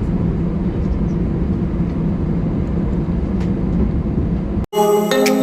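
Steady cabin noise inside an Airbus A319-112 on the ground after landing: a continuous rumble with a low hum. It cuts off abruptly near the end and electronic music starts.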